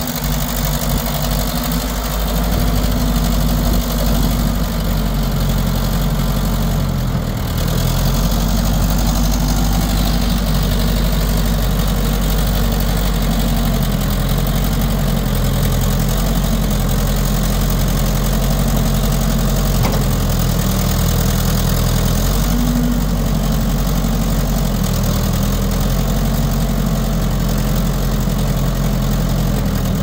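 Ford 655A loader backhoe's diesel engine idling steadily. Its note shifts slightly a few times as the loader and backhoe hydraulics are worked.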